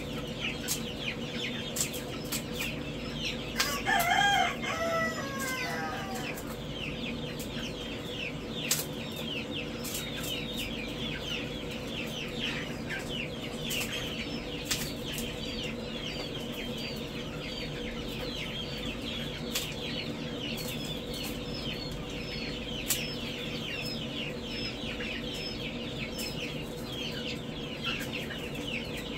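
A dense, continuous chorus of baby poultry chicks peeping in brooders. A rooster crows once about four seconds in, over a steady hum.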